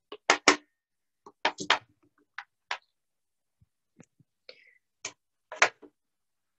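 Smooth pebbles and river stones being picked up and set down by hand on a glass-topped table, a series of irregular sharp clicks and knocks as they clack against the table and each other.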